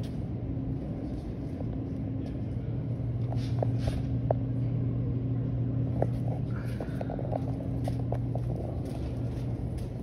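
A steady low machine hum with scattered footsteps and light knocks on a hard floor.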